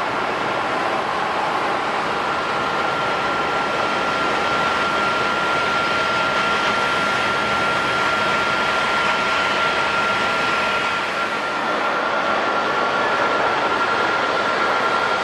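Jet airliner engines running steadily: a constant rushing noise with a single high whine held throughout.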